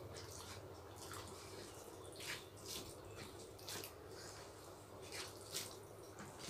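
Eating by hand: wet, sticky clicks and smacks from fingers mixing rice with chicken curry and from chewing, a scattered handful of short sharp clicks over a faint steady low hum.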